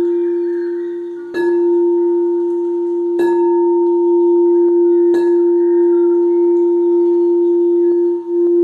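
Quartz crystal singing bowl tuned to F, struck three times about two seconds apart. Its pure, steady ringing tone sustains between the strikes.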